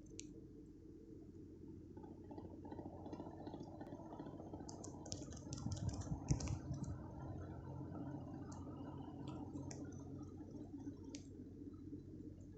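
Ceiling fan running with a steady low hum, with a cluster of sharp clicks and knocks around the middle.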